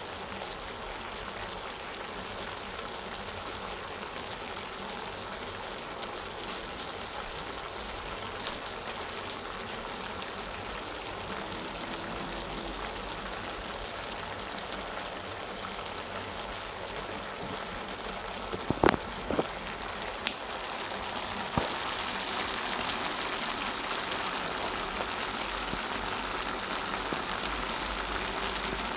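Cabbage, carrot and chicken stir-fry simmering in a steel pan on the stove, a steady sizzling hiss. A few sharp clicks come about two-thirds of the way through, and the hiss grows a little louder after them.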